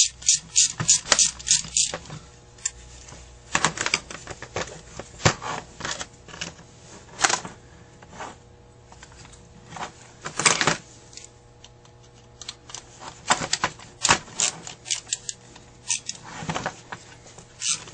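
Hand tools and metal parts of a disassembled Carter AFB carburetor clicking: a run of rapid, even clicks, about three a second, for the first two seconds and again near the end, with scattered clicks and scrapes in between.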